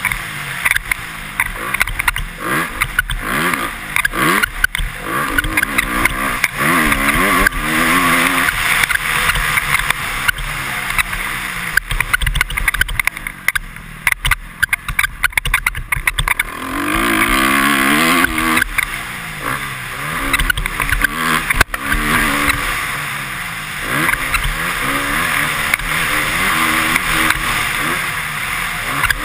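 Honda CRF250R four-stroke single-cylinder engine revving up and falling off again and again as the bike is ridden hard around a motocross track, heard from a helmet camera with wind noise over it. The engine eases off for a few seconds around the middle, then revs back up.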